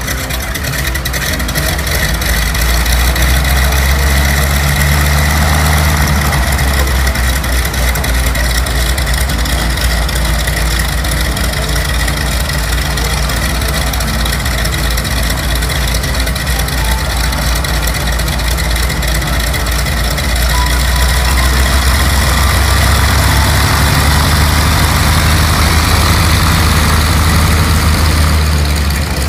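Ford Trimotor's three Pratt & Whitney R-985 Wasp Jr. radial engines running at taxi power, a loud, deep, steady drone that swells about five seconds in and again in the last third.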